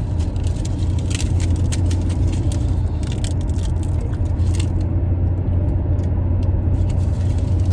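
Steady road rumble inside a moving car's cabin, with scattered faint clicks and rustles over it.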